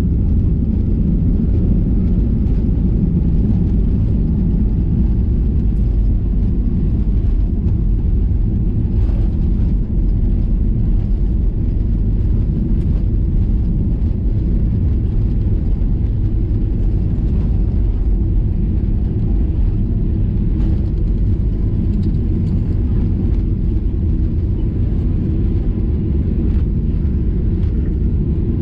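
Cabin noise of a Boeing 737-800 rolling out on the runway after touchdown, heard from a window seat over the wing: a steady, loud low rumble from the wheels, airframe and CFM56 engines.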